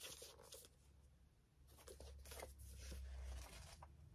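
Faint rustling and soft clicks of a paperback book being handled, its pages and cover flexed. A low hum swells in the middle.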